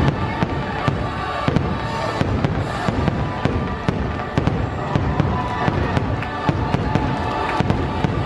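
Fireworks display: many shells bursting and crackling in quick succession, with the show's music playing underneath.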